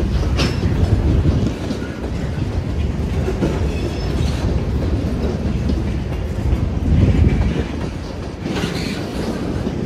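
Freight cars (boxcars and a tank car) rolling past, their wheels clattering rhythmically over the rail joints with a steady low rumble.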